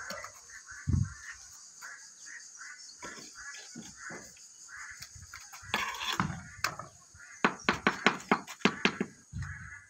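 A trowel tapping wall tiles into fresh mortar: a quick run of about a dozen sharp taps near the end, after a few softer knocks and thumps.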